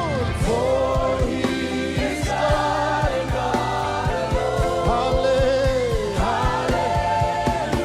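Live gospel worship music: a choir singing long held, gliding notes over a band.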